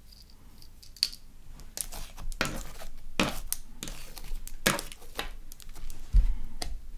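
Black magnetic slime (glue-and-borax putty with fine metal filings) being pressed and squished by hand, giving a string of sharp sticky crackles and pops. There is a low thump about six seconds in.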